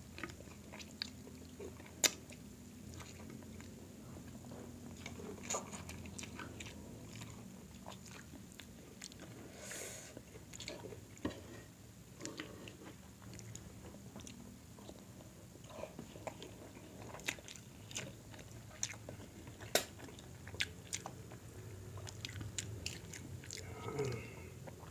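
Close-miked eating of a seafood boil by hand: chewing and mouth smacks, with many short, sharp clicks scattered irregularly as shrimp and mussels are picked apart.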